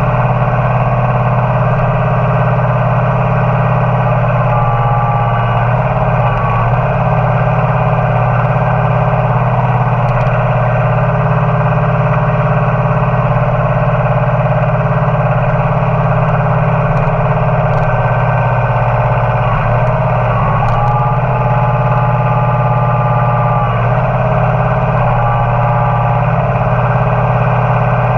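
Loud, steady engine sound of a tractor with a front loader, with a higher whine that shifts in pitch several times, typical of the loader hydraulics being worked.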